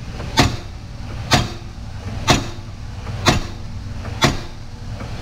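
Evenly spaced sharp knocks, about one a second, over a low steady hum.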